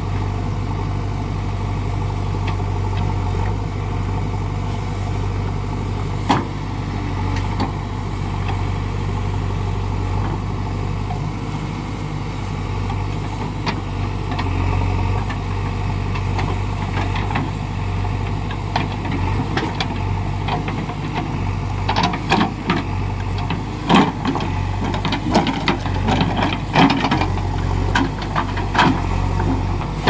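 JCB backhoe loader's diesel engine running steadily while the backhoe arm digs mud. A sharp knock comes about six seconds in, and knocks come often through the last third.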